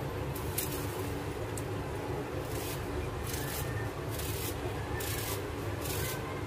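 Kitchen knife slicing thin pieces off a peeled red onion held in the hand, a crisp cut roughly every second, over a steady low hum.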